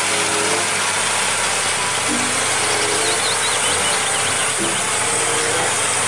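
McCormick farm tractor running under load as it pulls a multi-furrow reversible plough through the soil: a steady, dense engine and mechanical clatter over a low engine hum.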